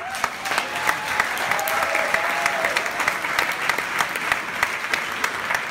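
Audience applauding, breaking out suddenly into dense clapping.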